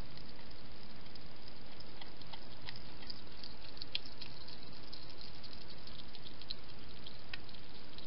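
Wild hedgehog with its snout in a dish, making small irregular clicks and smacks a few times a second over a steady hiss.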